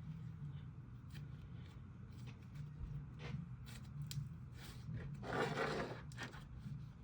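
Hands squishing and poking a clay slime, making small sticky clicks and crackles, with a longer, louder squish about five seconds in.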